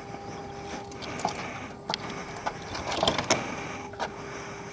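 A steady faint hum with a handful of sharp clicks and small knocks scattered through it, the busiest cluster about three seconds in.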